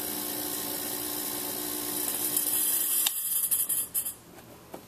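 Fog-machine smoke pump running with a steady hum. About two seconds in, a loud hiss of escaping smoke builds. The hum cuts off about a second later, and the hiss sputters on in spurts for about another second before dying away: a hose in the smoke-test line has failed.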